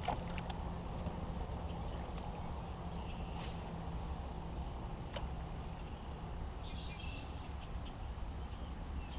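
A steady low engine hum with a fixed drone, with a few light clicks and two brief high bird chirps.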